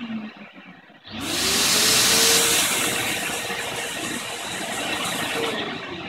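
A Mirka Ceros electric random-orbital sander is switched on about a second in, its whine rising quickly to a steady pitch. A Kärcher wet-and-dry vacuum cleaner starts automatically at the same moment and runs with a loud rushing noise. Near the end the sander is switched off and its whine falls as it winds down, while the vacuum noise fades with it.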